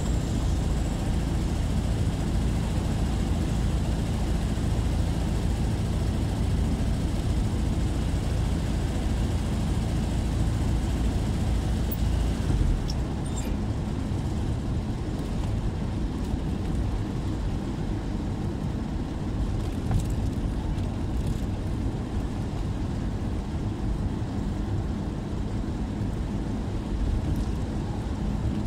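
Steady rumble of a car driving, engine and tyre noise heard from inside the cabin; the low rumble eases a little about halfway through.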